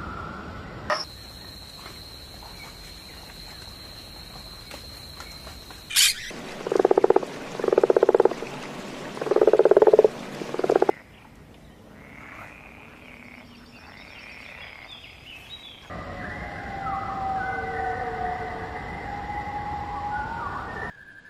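A toad calling: four loud, pulsing croaks, each about a second long, in the middle. Before them a steady high thin tone, and near the end wavering whistled calls.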